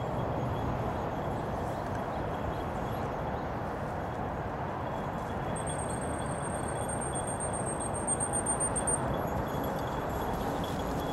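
Steady outdoor rumble of urban traffic. A thin, very high whine joins it from about six seconds in and stops about three seconds later.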